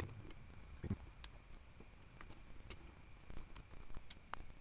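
Faint, scattered clicks and taps of small metal carburetor parts being handled and fitted by hand during reassembly of a Honda Shadow VT500C carb.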